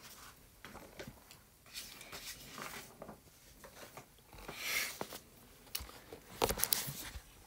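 Quiet room with faint handling noises: a brief soft hiss about five seconds in and a few small clicks near the end.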